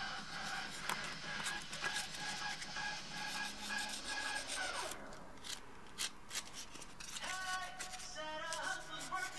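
Small knife cutting and scraping a block of polystyrene packing foam in quick scratchy strokes, which thin out for a couple of seconds about five seconds in.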